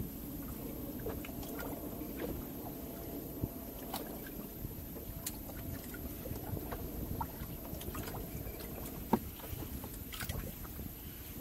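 Steady low rumble aboard a fishing boat at sea, with scattered light clicks and knocks and one sharper knock about nine seconds in.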